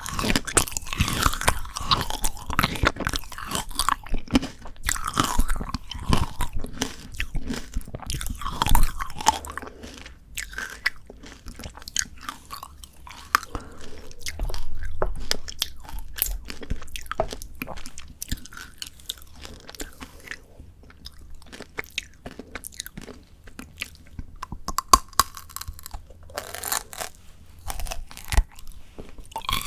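Frozen shine muscat grape tanghulu being bitten and chewed: the hard candied sugar shell cracks and crunches between the teeth. The crunching is dense for the first nine seconds or so, then turns to sparser, softer crackles and chewing.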